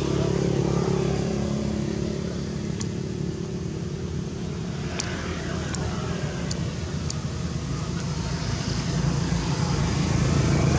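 A vehicle engine running steadily with a low hum. About halfway through there are a few short, high ticks.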